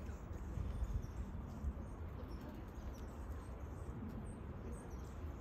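Outdoor background noise: a steady low rumble, with a few faint, short, high bird chirps near the end.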